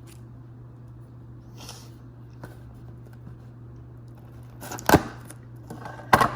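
Trading-card hobby box being handled and opened by hand: a few faint clicks, then two loud sharp knocks and scrapes of cardboard about five and six seconds in, over a steady low hum.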